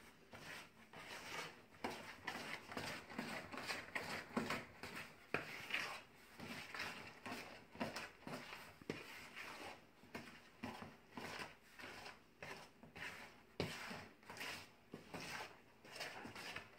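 Wooden spoon stirring a thick, chunky muffin batter of shredded carrot and apple, raisins, walnuts and coconut in a mixing bowl: repeated scraping strokes, irregular, about one or two a second, as the wet ingredients are folded into the dry.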